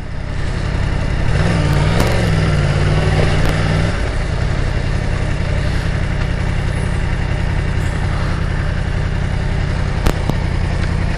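A 2018 Yamaha R1's crossplane inline-four, fitted with an Austin Racing GP1R slip-on exhaust, is running as the bike slows to a stop. About a second and a half in, its note wavers up and down for about two seconds, then settles into a steady idle. A sharp click sounds near the end.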